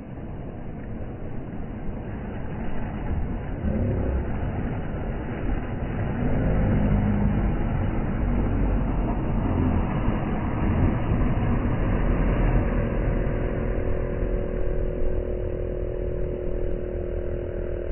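Boat outboard motor running, growing louder a few seconds in, with a steady hum added over the last five seconds that cuts off at the very end. Small waves wash on the shore underneath.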